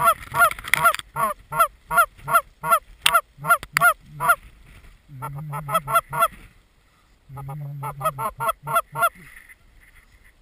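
Goose calling: rapid runs of short honks and clucks, several a second, in bursts broken by brief pauses about five and seven seconds in.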